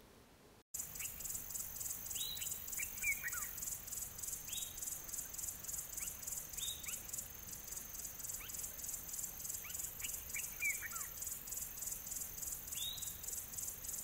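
Nature ambience of insects and birds: a rapid, regular high-pitched insect chirring, with short chirps sweeping downward every second or two. It starts about a second in, after a moment of silence.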